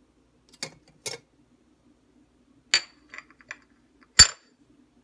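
Tea mug's ceramic lid and stainless-steel infuser clinking as they are handled and set down: two light knocks, then a clink followed by a few small ticks, and a sharper ringing clink near the end, the loudest of them.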